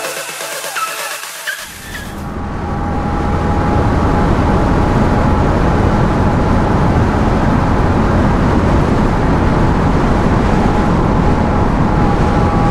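Electronic dance music ends abruptly about one and a half seconds in. It gives way to the steady rush of wind and motorcycle running at highway speed on a Benelli Leoncino 250, which swells over the next two seconds and then holds steady.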